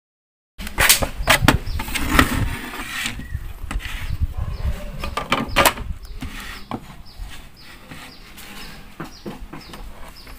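Plastic casing of a satellite receiver box being handled as its cover is lifted off, with sharp clicks and knocks of plastic and loose screws for the first several seconds. In the second half a faint high chirp repeats about once a second in the background.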